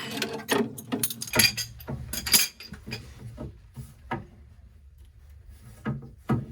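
Wrench clinking and clicking against the metal gas pipe fittings of a water heater regulator while a joint is tightened: a quick run of sharp metal clicks, then a few single clicks further apart.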